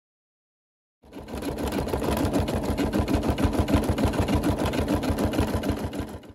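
Brother SE625 embroidery machine stitching a design: a fast, even rhythm of needle strokes over the machine's motor hum. It starts about a second in and cuts off suddenly near the end.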